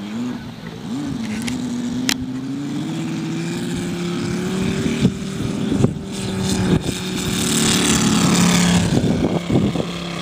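Moki 150 cc five-cylinder radial engine of a giant-scale RC model airplane opening up to full throttle for takeoff. Its pitch rises over the first few seconds, then holds steady, and it is loudest near the end as the plane lifts off and climbs.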